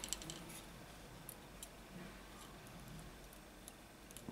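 Faint light clicks and ticks of a smartphone's display assembly and body being handled during reassembly: a quick cluster of small clicks at the start, then a few scattered ticks.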